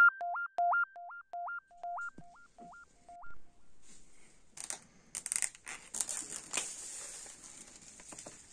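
Electronic telephone-style beeps, each dropping from a higher to a lower pitch, repeat a few times a second and fade out about three seconds in. After that comes the crinkling and crackling of the plastic shrink wrap on a sealed vinyl LP as it is handled.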